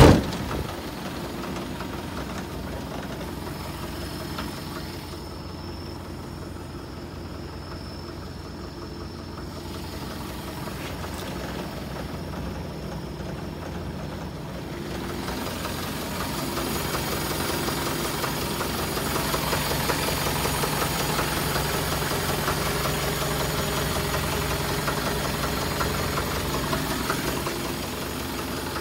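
Isuzu Elf truck's engine idling steadily, louder from about halfway through, with a single loud thump right at the start.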